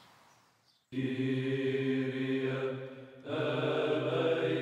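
Chanting: low voices hold long, steady notes in two phrases. The first phrase starts about a second in, after a near-silent moment, and the second follows a brief dip about three seconds in.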